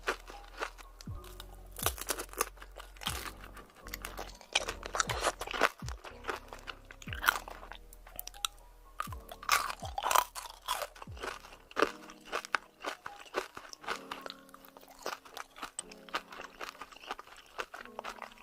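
Crisp biting, crunching and chewing of fresh fruit close to the microphone, many crunches in quick clusters, over background music with held low notes.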